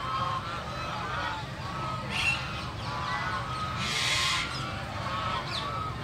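A flock of white domestic geese honking, many short calls overlapping and repeating, over a steady low rumble. A short rushing hiss stands out about four seconds in.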